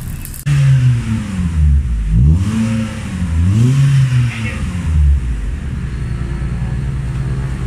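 Proton Persona's four-cylinder petrol engine heard through a straight-pipe exhaust that replaces the muffler. The revs fall away, rise once and drop back, then settle into a steady idle for the last couple of seconds.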